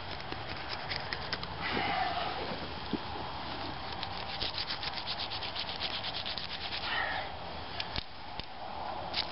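Knife cutting through a wild hog's thick hide and shoulder shield: rough rasping strokes, with a quick run of small ticks in the middle as the blade saws through.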